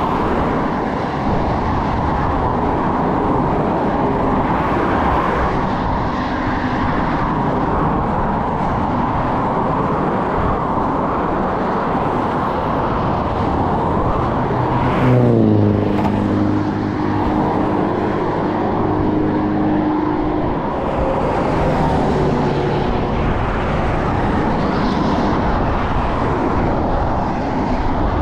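Highway traffic and wind noise heard while cycling along the shoulder of a motorway. About halfway through, a louder vehicle passes close by, and its engine note drops in pitch as it goes and then holds steady for a few seconds.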